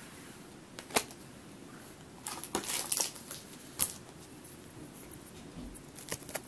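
Pokémon trading cards and a foil booster-pack wrapper handled by hand: a few sharp clicks and rustles as the cards are set down, then light crinkling of the foil wrapper near the end.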